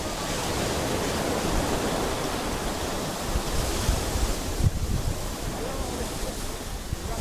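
Surf washing on a beach in a steady hiss, with wind buffeting the microphone.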